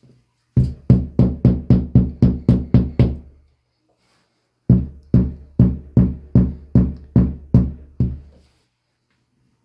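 Hammer blows driving a plastic wall anchor into a pre-drilled hole in the wall: a quick run of about a dozen knocks, a pause of over a second, then about eight slower knocks. Each blow leaves a short low ring.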